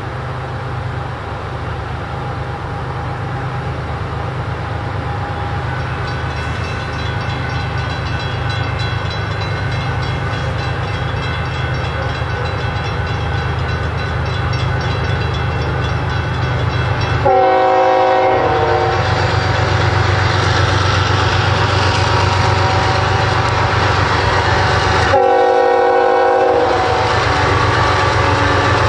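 Union Pacific diesel locomotives leading a freight train approach with their engines running, growing steadily louder. The horn sounds twice, each blast lasting about a second and a half, the first about two-thirds of the way in and the second near the end.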